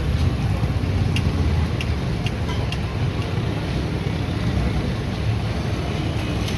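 Steady low rumble of street and traffic noise, with a few sharp clicks in the first three seconds.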